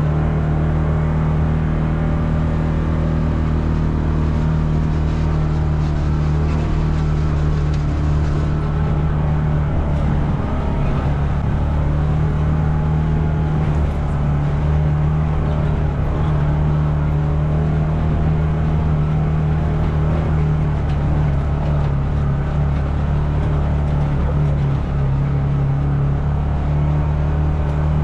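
Can-Am Maverick Trail side-by-side's V-twin engine running steadily under way on the trail, its note holding nearly level with only small shifts in pitch.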